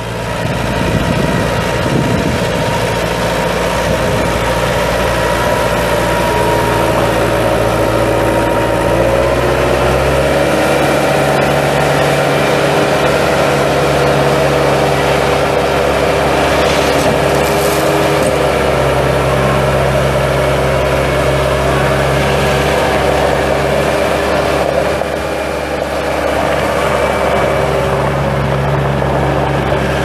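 Deutz four-cylinder diesel engine of a 2000 Bobcat 863 skid steer running steadily. Its pitch rises a little about ten seconds in and then holds.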